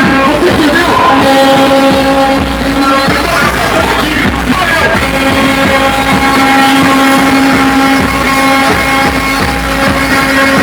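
Music blasted at very high volume from a car sound system, dominated by one long held note that breaks off twice early on and then carries on steadily.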